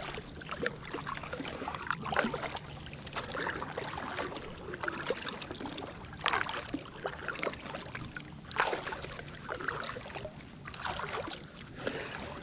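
Kayak paddling: the paddle blades dip and pull through the water with splashes and drips, a stronger stroke every couple of seconds.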